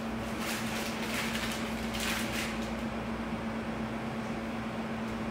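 Plastic piping bag crinkling in three short rustles during the first two seconds as it is twisted and squeezed, over a steady low hum.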